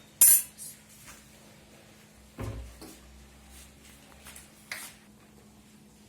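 Kitchen utensils being handled: a spoon and containers clinking and knocking a few times, the loudest clink just after the start and a duller knock about two and a half seconds in.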